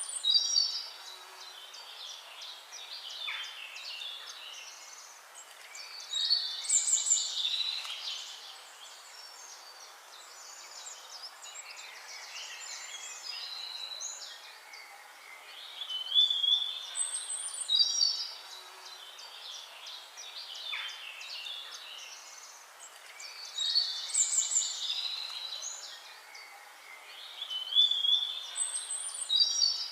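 Songbirds chirping and singing, high-pitched phrases that swell into louder bursts of song every several seconds, with quieter chirps in between.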